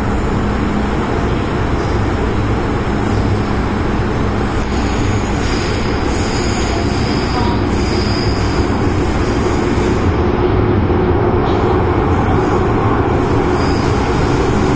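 Interior noise of an MTR M-Train metro car running at speed: a steady rumble of wheels on rail and running gear. Faint high-pitched wheel squeal comes in around the middle and again near the end.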